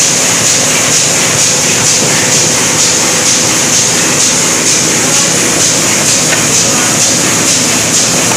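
Automatic envelope-making machine running, a steady loud mechanical clatter with a regular beat of about two strokes a second.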